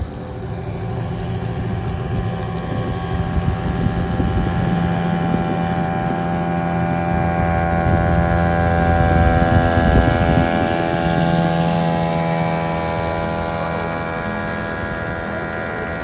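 British Seagull two-stroke outboard motor running at a steady speed, growing louder towards the middle and then easing off a little.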